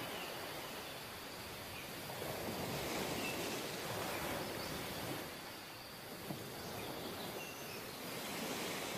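Sea surf breaking and washing up a sandy beach, a steady rush that swells and eases as the waves come in.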